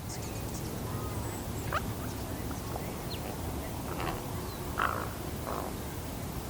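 Juvenile raven, about 13 weeks old, giving a few short, scratchy calls, with the loudest near the end. It is a young bird still learning how its voice box works, over a steady low background rumble.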